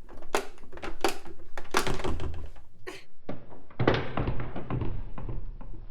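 Pie Face game being cranked: a series of sharp clicks, then a louder thunk about four seconds in, followed by a rougher clatter.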